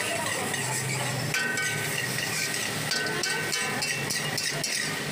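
Metal spatula clanging and scraping against a wok as egg fried rice is stir-fried, in a steady run of ringing metallic strikes about three a second.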